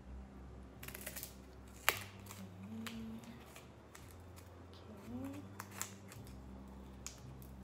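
Small scissors snipping through picture-covered cardboard: a few sharp snips, the loudest just before two seconds in.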